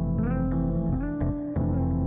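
Background music with plucked guitar and bass notes over a steady beat.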